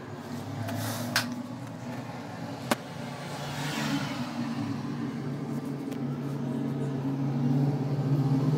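A steady motor hum that grows louder near the end, with two sharp clicks about a second and a half apart.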